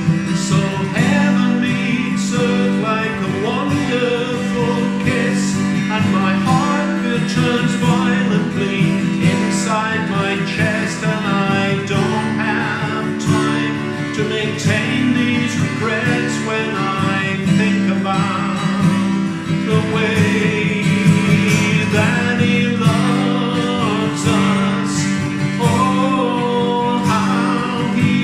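Music: a song with strummed acoustic guitar and singing, steady throughout.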